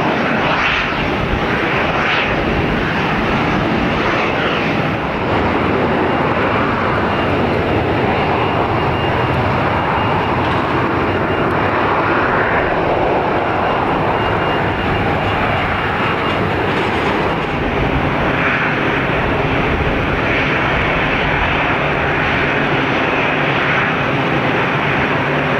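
Aircraft engines running steadily on the apron: a constant loud engine noise that holds without a break.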